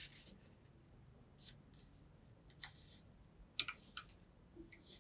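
A sheet of A4 paper being folded and creased by hand, heard as several faint, short rustles and sliding strokes of fingers over the paper, with a few small crinkles.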